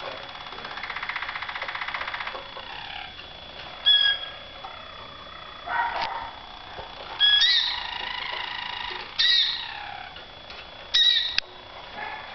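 Harzer Roller canaries singing. A soft, rapid roll starts about a second in, followed by about five louder, short whistled phrases whose notes bend up and down.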